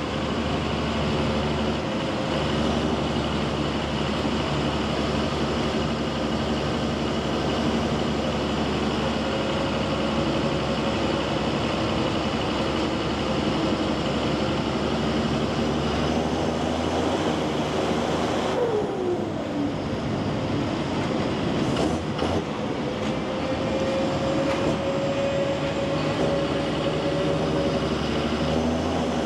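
John Deere 7530 tractor's six-cylinder diesel engine running under way. About two-thirds through, the engine speed drops sharply and then climbs back over a few seconds.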